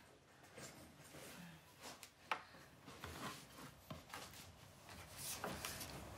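Quiet room tone with scattered faint rustles and small clicks, one sharper click a little over two seconds in.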